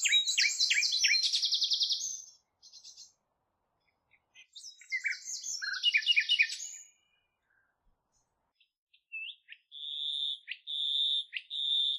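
A songbird singing in quick phrases of rapid high chirps and trills, with pauses between them. A thinner run of high notes comes near the end.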